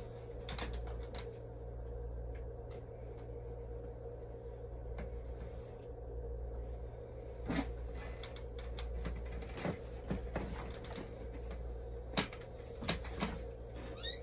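Steady low hum of an airliner cabin, with a few scattered soft knocks and rustles as people shift and climb across the seats.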